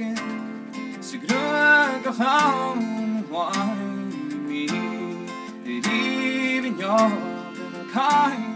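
A singer performing a Gaelic song in long, wavering held notes over a strummed acoustic guitar.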